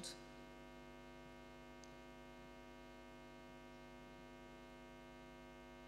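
Near silence with a steady electrical hum made of many even overtones, unchanging throughout.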